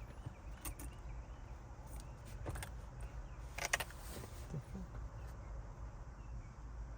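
A few scattered light clicks and knocks of parts being handled, the strongest a little past halfway, over a low steady hum.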